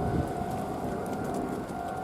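Meitetsu 6800-series electric train moving slowly on a shunting run: a low rumble with a steady tone held over it.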